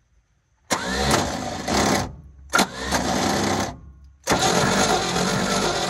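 Starter cranking the 1971 International truck's engine without it firing, in three bursts, the last still going at the end. It is a wet compression test with oil in cylinder number one, the oil meant to seal worn rings and raise the low reading.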